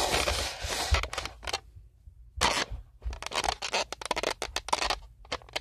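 Close handling noise: irregular scraping and rustling in quick strokes while slime ingredients are worked by hand, with a short pause about two seconds in.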